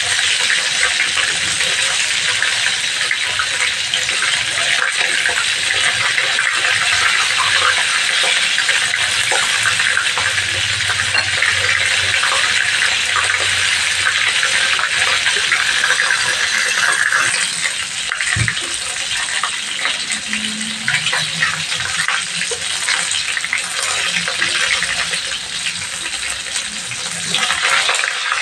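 Chicken pieces frying in hot oil in a wok: a steady, dense sizzle full of crackling and spitting, easing a little in the second half. A single knock sounds about two-thirds of the way through.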